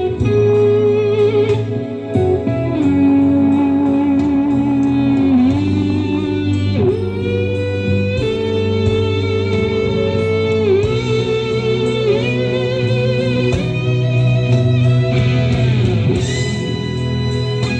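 Instrumental music played through a PA sound system during a sound check: a lead guitar holds long notes that bend and dip in pitch over a steady bass line.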